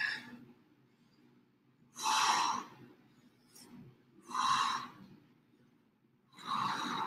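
A person breathing out hard with exertion during lunges. There are three heavy exhalations about two seconds apart, one per rep, with quieter breathing between them.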